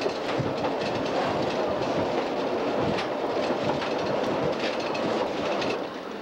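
Nelson Streetcar No. 23, an electric streetcar, running along its track, heard from inside the car: a steady rumble with irregular clicks and rattles from the wheels on the rails. It drops a little quieter just before the end.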